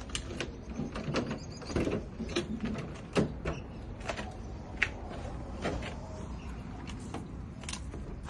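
Irregular clicks, knocks and small rattles of hands working with tools and parts in and around a car, with sharper knocks about three and five seconds in.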